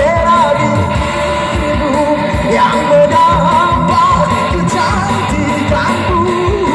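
Live band music with a singer's ornamented, wavering vocal line over a steady drum beat.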